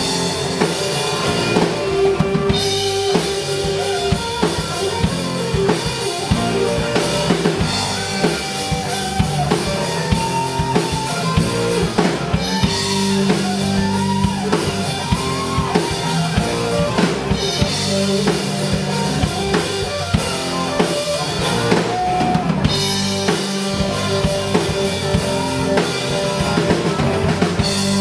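Live blues-rock band playing an instrumental passage with no vocals: two electric guitars and an electric bass over a drum kit. In the middle, a guitar line of bending notes rises and falls.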